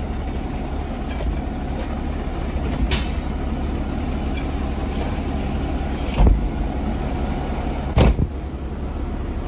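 Concrete mixer truck's diesel engine idling steadily, with three sharp knocks: a light one about three seconds in and two louder ones near six and eight seconds.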